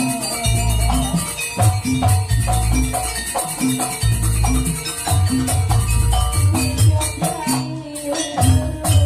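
Live Banyuwangi gamelan music for a jaranan and gandrung dance: deep drum pulses and a repeating melody over a fast, steady beat of sharp high percussion strikes.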